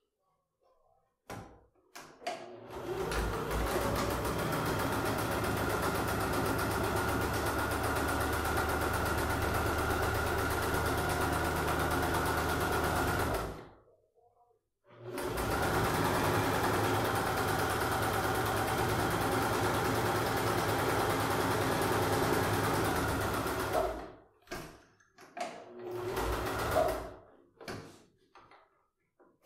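Domestic electric sewing machine stitching along the edge of a fabric bag strap, running steadily in two long runs of about ten seconds each, with a brief stop between them. Near the end come a few short runs and handling clicks.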